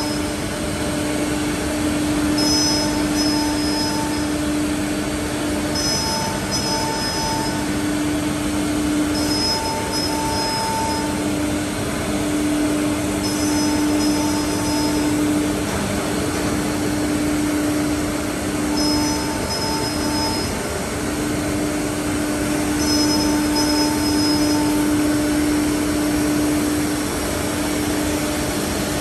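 Single-head CNC wood router running steadily with a constant hum. A higher whine comes and goes in short bursts every three to four seconds.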